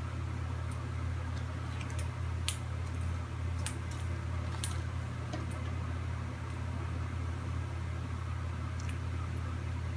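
A steady low hum, with a few faint, sharp clicks scattered through it.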